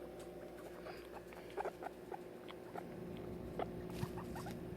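Guinea pigs making scattered small ticks and brief soft chirps as they move and sniff about, over a faint steady hum.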